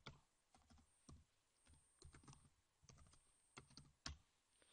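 Faint typing on a computer keyboard: scattered, irregularly spaced keystrokes, one a little louder near the end.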